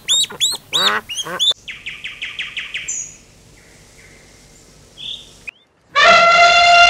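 Mallard ducklings peeping rapidly, cut off suddenly after about a second and a half. A short run of quick even ticks follows, then a faint lull. Near the end an elephant gives a loud, long trumpet.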